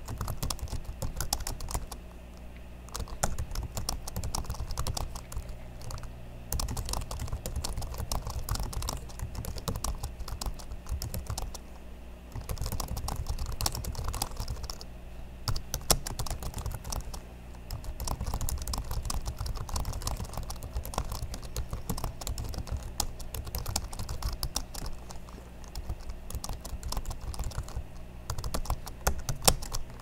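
Typing on the well-worn keyboard of a 2007 MacBook Pro: a steady stream of key clicks, broken by short pauses every few seconds, with one sharper key strike about halfway through.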